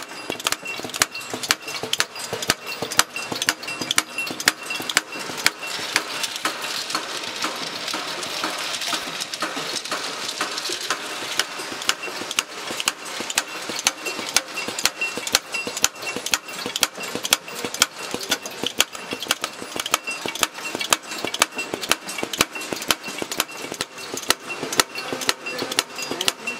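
Rotary bullet sizing machine for M80 7.62 mm bullets running: the indexing dial and sizing punches clack in a fast, even rhythm. A hiss swells for several seconds near the middle.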